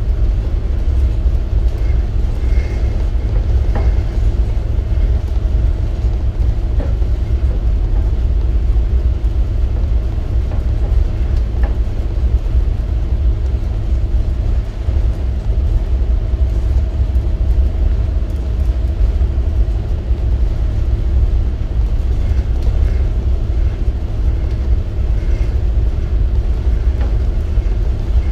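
Towboat's diesel engines running steadily under way while pushing a tow of loaded barges: a loud, even low rumble with a constant hum.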